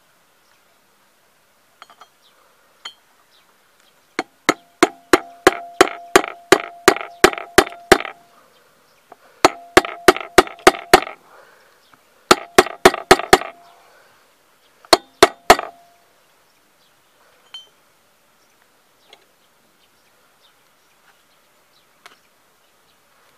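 Hammer striking a steel drift against a valve guide in a scooter's aluminium cylinder head: four runs of sharp metallic blows, about three a second, each with a short ring.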